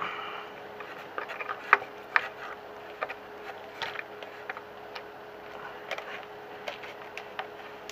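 Irregular small clicks and rubbing of a plastic clevis being screwed along a threaded metal push rod by hand, with a sharper click about two seconds in. A faint steady hum runs underneath.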